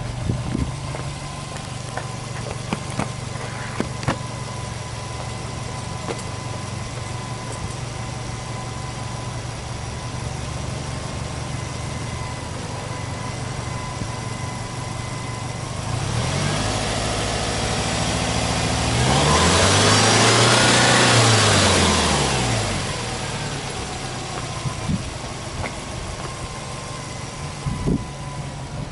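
Subaru Impreza WRX STI's turbocharged flat-four boxer engine idling steadily, then revved in neutral a little over halfway through: the revs climb, hold high for a few seconds, and drop back to idle.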